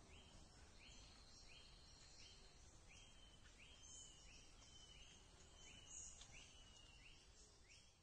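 Faint natural ambience of animal calls: a short chirp repeating about every two-thirds of a second, with other high calls scattered over it and a low hiss beneath.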